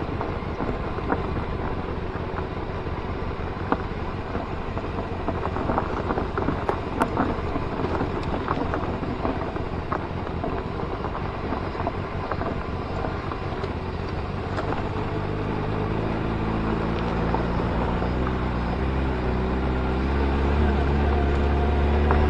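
Motorcycle running on the road with wind buffeting the microphone, with scattered small knocks. Steady music tones fade in over the last several seconds.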